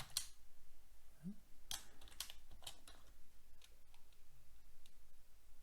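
Typing on a computer keyboard: irregular keystrokes, a few a second, as a line of Arduino code is entered.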